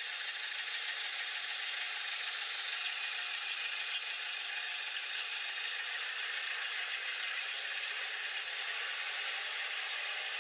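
Plastic toy tractor pulling a stone-loaded toy trolley over dry dirt: a steady, even rattle of its wheels and parts rolling.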